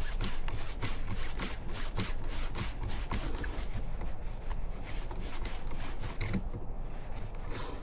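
Irregular small metal clicks and scrapes from hand work on the outboard's anode bolt and socket, over a steady low hum.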